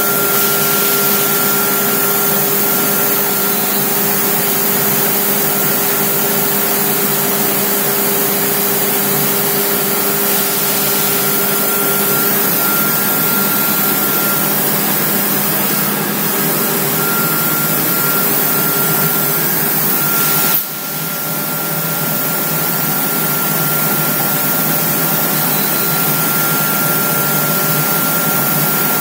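Homag CNC machine running steadily: an even, loud rush of noise with a steady whine of several tones on top. About twenty seconds in, the sound drops suddenly and then builds back up.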